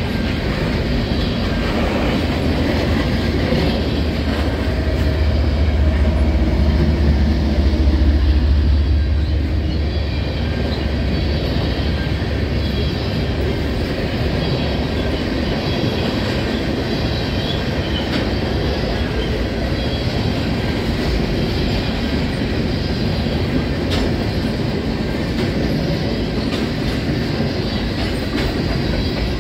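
Freight train of covered grain hopper cars rolling past close by: a steady rumble and clatter of steel wheels on the rails. A deeper low rumble swells and fades again in the first half.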